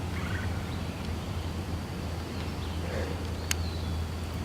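Outdoor yard ambience: a steady low hum under faint, scattered bird chirps, with one sharp click about three and a half seconds in.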